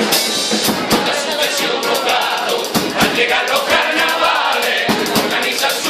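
Carnival comparsa singing in chorus with drums beating along, heard live among a crowd.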